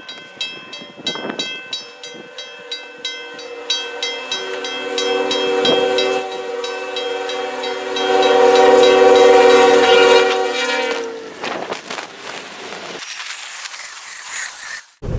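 Level-crossing bell ringing at about three strikes a second while a diesel locomotive's air horn sounds a chord of several tones, growing louder, loudest around eight to ten seconds in, and stopping about eleven seconds in. The locomotive then passes, ploughing through deep snow, and the snow spray hits the microphone with a rushing hiss near the end.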